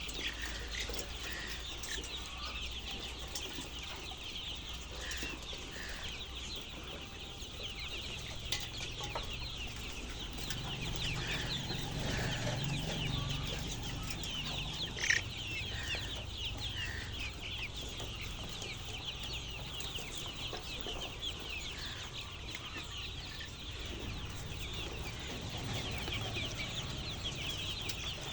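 A crowd of chickens in a poultry house, many short high-pitched chirps and cheeps overlapping without a break. Beneath them runs a low hum, and there is one sharp click about halfway through.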